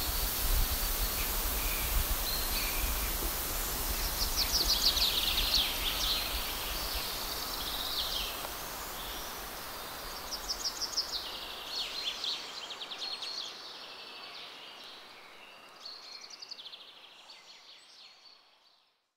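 Outdoor ambience in which a songbird sings short phrases of rapid high notes, repeated every few seconds over a steady hiss and low rumble. The whole sound fades out gradually toward the end.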